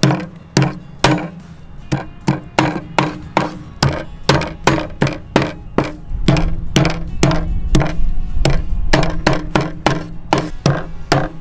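Hatchet chopping through the scored legs and tail of a green iguana on a cutting board: a quick series of sharp chops, about two or three a second. The skin has been scored at the joints so the blade goes through the tough hide easily.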